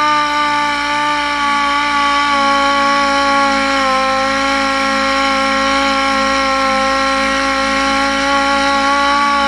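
Air-powered orbital sander with a 500-grit pad, run on a slow speed setting, sanding a veneered plywood panel: a loud, steady whine of several tones over a faint rubbing hiss.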